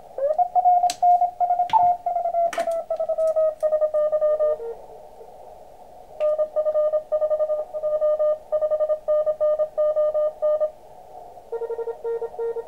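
Morse code (CW) signals from an Elecraft KX2 transceiver's receiver over band hiss. A tone slides slowly down in pitch as the receiver is tuned, with a few clicks, then breaks into keying. From about six seconds in a contest station sends Morse code, and a lower-pitched one comes in near the end.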